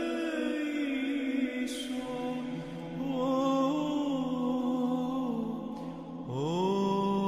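A male voice chanting a Byzantine Greek Orthodox hymn in long, slowly gliding held notes. A low held drone note joins about two seconds in, and a new phrase starts with a rising note near the end.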